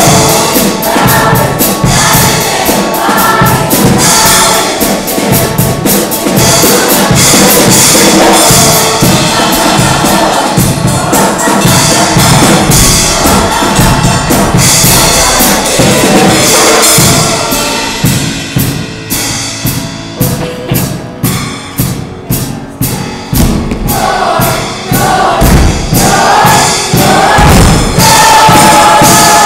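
Show choir singing over band music with a steady drum beat. About two-thirds of the way through the music drops back to mostly drums, then the voices come back in.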